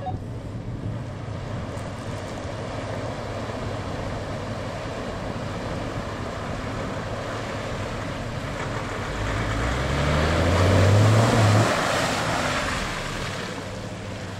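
Nissan Xterra SUV wading through a muddy water hole: a steady wash of churning water and engine. About nine seconds in, the engine revs up, rising in pitch, with a loud surge of splashing water that peaks a couple of seconds later and then fades.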